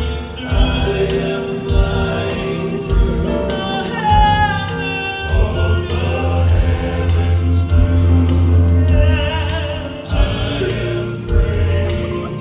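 Male southern gospel quartet singing in close harmony through microphones, live, with a bass line and drum beats underneath.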